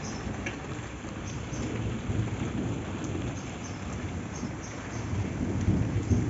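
Heavy rain pouring down in a thunderstorm: a steady wash of rain with a deep rumble under it that swells near the end, and scattered faint ticks of drops.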